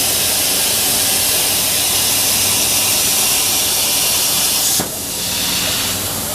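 CNC plasma cutter torch hissing steadily as it cuts 1/4-inch plate. The hiss cuts off abruptly about five seconds in, leaving a quieter hiss.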